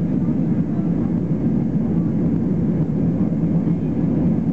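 Steady cabin noise inside a Boeing 737-200 on final approach, heard from a window seat beside the wing: airflow over the fuselage and the low drone of its Pratt & Whitney JT8D turbofan engines.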